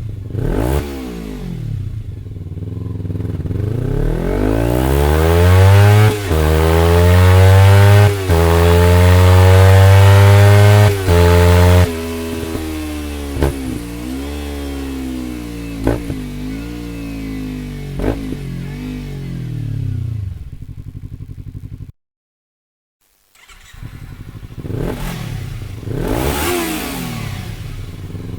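Kawasaki Ninja 300 parallel-twin motorcycle accelerating hard past, rising in pitch with brief dips between gears and loudest as it goes by, then fading away into the distance. After a brief cut, the engine is revved in short blips.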